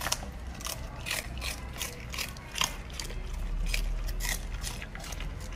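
A puppy chewing napa cabbage leaves: a quick series of crisp, wet crunches, about three a second.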